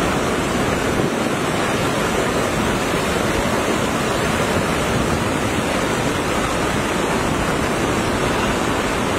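Fast-flowing monsoon floodwater rushing through a street, a steady, unbroken wash of water noise.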